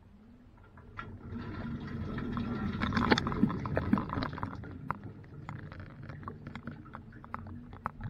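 Dishwasher spraying water inside the tub: the spray starts about a second in, builds to a loud wash of water hitting the racks and walls around three to four seconds, then eases into splashing with many short sharp ticks.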